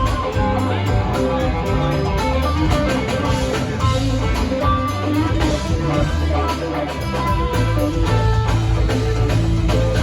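Live band playing, an electric guitar line over a steady bass.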